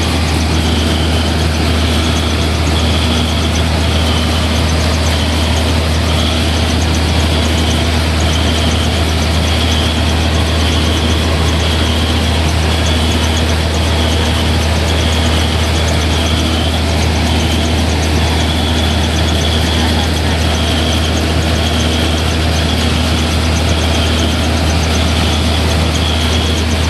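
Old family-size rice milling machine running under load, milling rice: a loud, steady deep hum with a higher whir that pulses about once a second.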